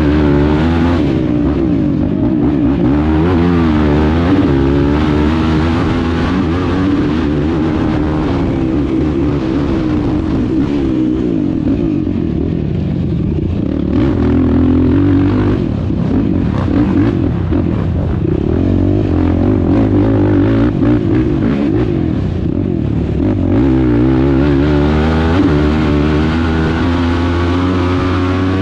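Racing quad's engine running hard, heard close up from the machine itself, its pitch climbing and dropping again and again as the rider works the throttle, with a long climb near the end.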